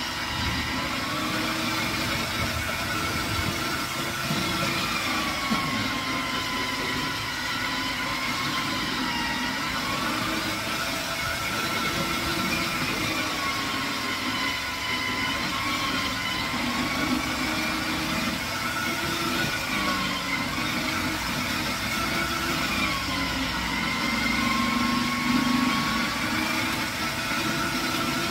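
Electric food-processor grater running steadily as pieces of labu gourd are pressed through its grating disc. Its motor pitch sags and recovers every few seconds.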